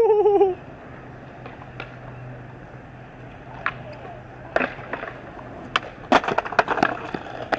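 Skateboard knocking and clattering on concrete: a few separate knocks about halfway in, then a fast run of board slaps and rattles near the end. A short wavering voice cry at the very start is the loudest sound.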